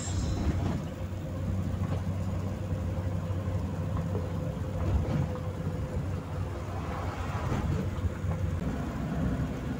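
Car driving along a highway, a steady low engine and tyre hum. A second, slightly higher hum joins near the end.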